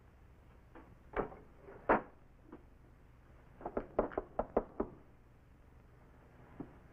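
Knocking on a wooden door: two separate knocks, then a quick run of several knocks about two seconds later.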